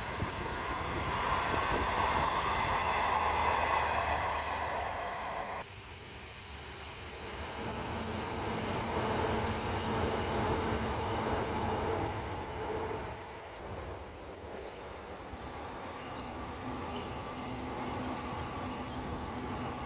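Train running past on the rails with steady rolling wheel noise. The sound drops off abruptly about six seconds in, then builds again and eases toward the end.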